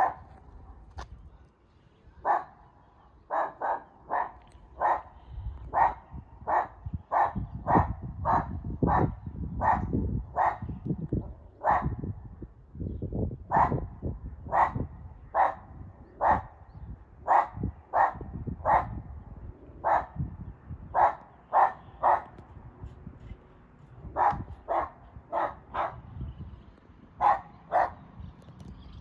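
A burly, strong-looking dog barking over and over behind a fence, in runs of short barks at about two a second with brief pauses in between.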